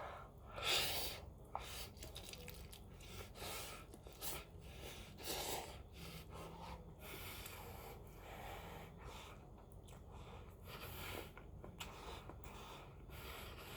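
Close-up eating sounds from a bowl of Buldak spicy stir-fried noodles: a string of short noisy slurps and sharp breaths through the mouth, with chewing. They come about one a second, the loudest about a second in.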